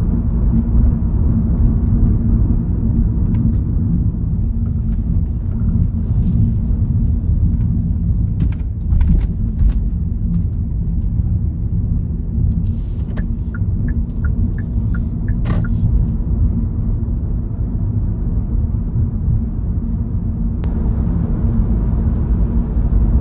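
Steady low road and engine rumble inside a Kia K3's cabin while it drives, with a few light clicks and ticks about halfway through.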